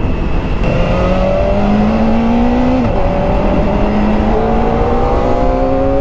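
Kawasaki ZX-4RR's 399 cc inline-four, on its stock muffler, accelerating hard through the gears. The engine note climbs and drops at two upshifts, about three and four and a half seconds in, then climbs again, over wind noise.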